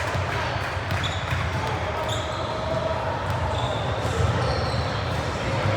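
Basketball game in a gym: a ball bouncing on the hardwood court, short high sneaker squeaks now and then, and a steady background of voices, all echoing in the large hall.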